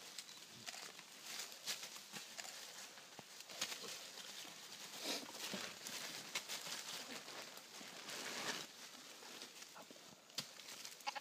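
Irregular crackling and rustling of dry leaf litter under footsteps, as mandrills and the person filming move across the forest floor.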